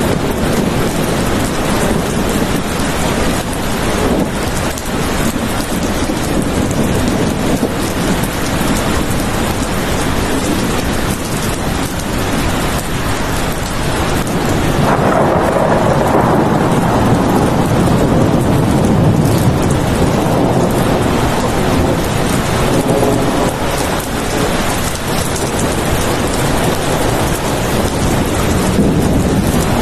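Steady heavy rain falling, with a low rumble of thunder that swells about halfway through and fades over several seconds.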